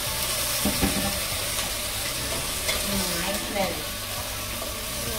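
Raw chicken pieces sizzling in hot oil with sautéed garlic and onion in a stainless steel pot while a wooden spoon stirs them, with a few knocks along the way.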